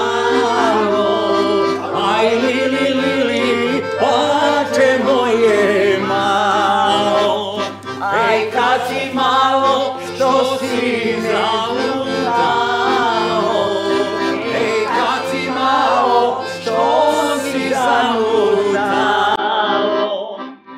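Accordion playing a folk tune while voices sing along; the music stops near the end.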